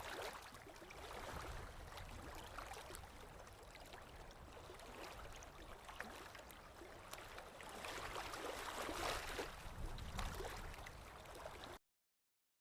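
Faint ocean surf washing in and out, swelling twice, with wind rumbling on the microphone. It cuts off suddenly near the end.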